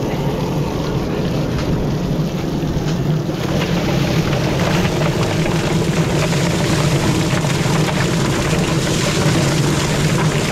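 A motor running steadily with a low hum and a rattling hiss, the hiss growing louder about a third of the way in.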